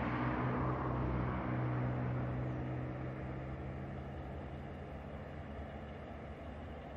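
Diesel locomotive engine running with a steady low hum that fades away over the first few seconds.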